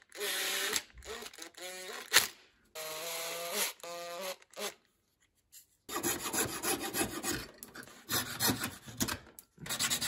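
Short bursts of a whirring hum in the first few seconds. Then, after a pause, rapid repeated scraping strokes of a hand tool working a small wooden part.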